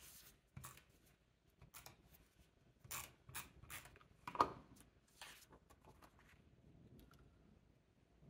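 Handheld adhesive tape runner drawn across the back of cardstock paper in a series of short strokes, the loudest about four and a half seconds in, followed by the paper being laid and pressed onto the card; it goes quiet after about five and a half seconds.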